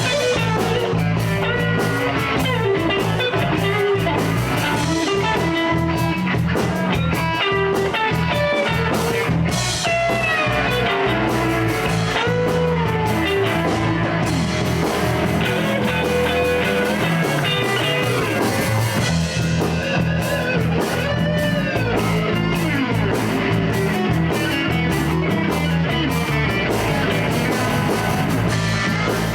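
Live blues band playing an instrumental passage: a guitar lead with bent notes over bass and drums.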